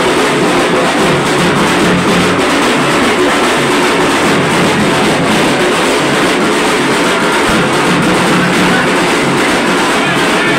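Dhak drums beaten in a fast, unbroken rhythm for Chhau dance, loud and dense.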